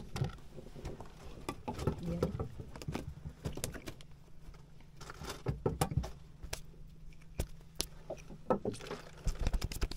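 Scattered clicks and knocks of gear being handled on a small fishing boat, over a steady low hum.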